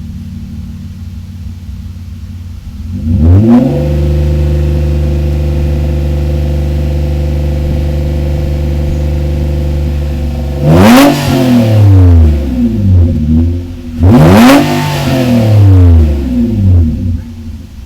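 Engine free-revving through an exhaust fitted with an aftermarket BE FREE center pipe. It idles, blips about three seconds in and is held at a raised, steady speed for several seconds. From about eleven seconds in it gives a series of sharp revs that rise and fall back, settling to idle near the end.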